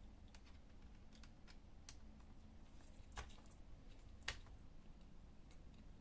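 Faint, scattered small clicks and taps of a screwdriver and screws against a laptop's plastic and metal parts as the display bracket screws are undone, a little louder twice about three and four seconds in.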